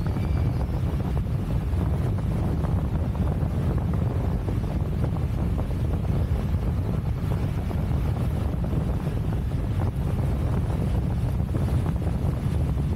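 Airflow buffeting the camera microphone during a speedflying glide: a steady, low wind rumble.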